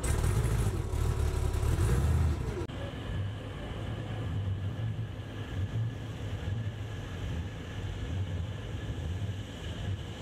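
Lowered classic pickup truck's engine rumbling loudly, its pitch rising and falling briefly. After a sudden cut about two and a half seconds in, a quieter, steady engine rumble carries a faint high whine.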